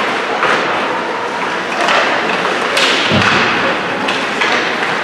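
Ice hockey play on the rink: sharp clacks of sticks and puck, and a dull, heavier thud just after three seconds in, over a steady rink hubbub.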